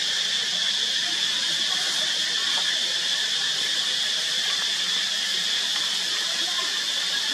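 Steady high-pitched insect chorus, an unbroken shrill drone at an even level with no pauses.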